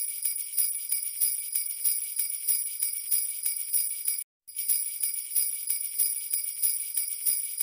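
Sleigh bells shaken in a steady rhythm, about four shakes a second, with a brief break about four seconds in.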